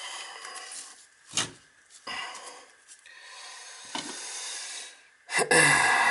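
Short bursts of rubbing and scraping from hand work at a toilet flange, with a sharp click just over a second in and a knock about five seconds in, followed by louder scraping.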